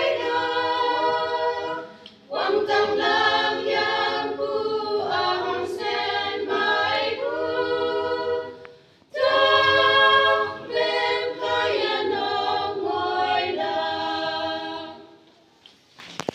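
A women's choir singing a hymn a cappella, with held notes and short pauses about two and nine seconds in. The singing dies away near the end.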